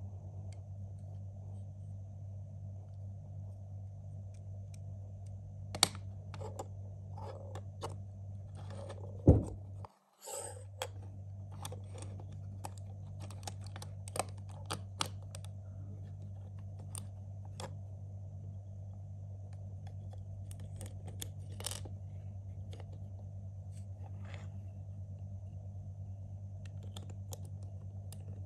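LEGO Technic plastic parts being handled and pressed together by hand: irregular sharp clicks, taps and small rattles, a few louder snaps about six and nine seconds in, over a steady low hum. The sound cuts out for a moment about ten seconds in.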